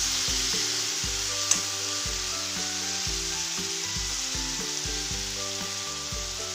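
Onions, garlic and bay leaves sizzling in hot oil in an aluminium kadai, stirred with a spatula at first, then left to fry. There is a single sharp knock about a second and a half in.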